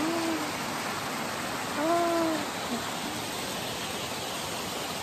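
Steady rushing of a stream's flowing water. A person's voice makes two short sounds, one at the very start and a louder one about two seconds in.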